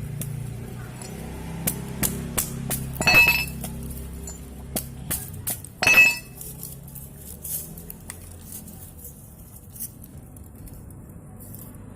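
Metal knocks and clinks from hitting a refrigerator compressor's motor from the side to drive out its copper windings: a string of sharp irregular strikes, the two loudest ringing briefly about three and six seconds in.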